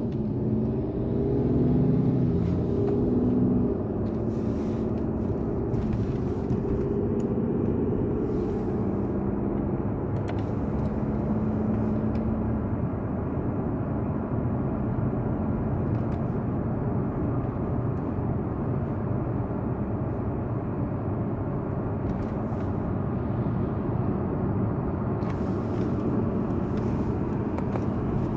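Car engine and road rumble heard from inside the cabin, with the engine note rising over the first few seconds and then holding before settling into a steady low rumble.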